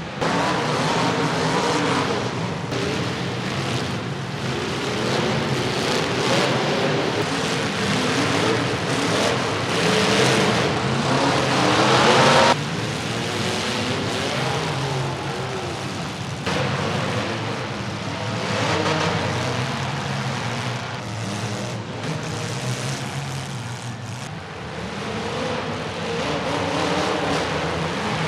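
Demolition derby cars' engines revving hard, several at once, their pitch rising and falling as they ram one another amid a dense noisy din. The sound changes abruptly a few times as one clip gives way to the next.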